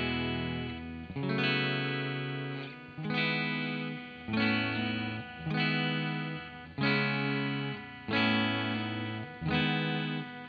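Fender Deluxe Players electric guitar, played clean through its bridge noiseless single-coil pickup: chords strummed and left to ring, one about every one and a half seconds.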